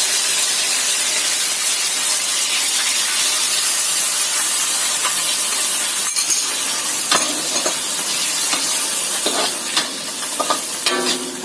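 Chicken stir-frying in a wok, sizzling steadily, with a metal spatula scraping and clicking against the pan now and then. About halfway through, a thickening liquid of cornstarch slurry is poured in.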